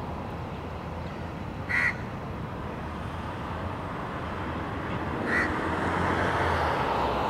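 A bird gives a short, high call twice, about two seconds in and again past five seconds, over steady outdoor background noise that grows louder near the end.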